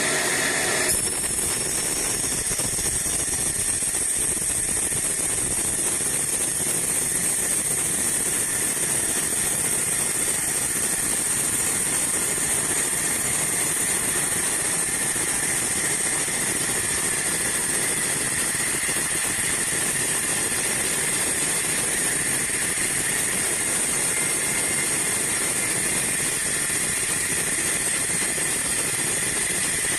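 Sawmill band saw running steadily, an even mechanical drone with a high hiss.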